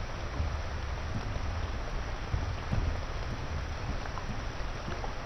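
Heavy rain falling steadily: an even rushing hiss with a low rumble underneath.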